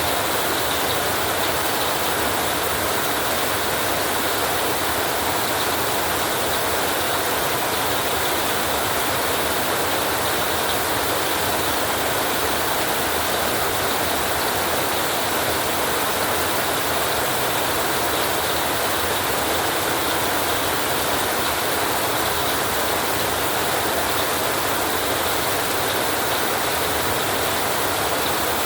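Steady rain on a tin roof, an even, dense hiss with no let-up and no thunder.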